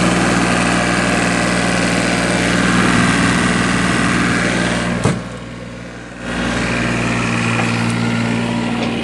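Kubota U-25 mini excavator's diesel engine idling steadily, heard close to the open engine bay. A single sharp knock about five seconds in, after which the engine sounds muffled for about a second.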